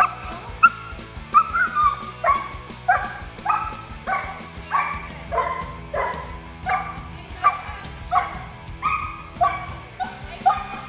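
Eleven-month-old German Shepherd yelping and crying over and over, about one and a half short cries a second, while it fights the leash.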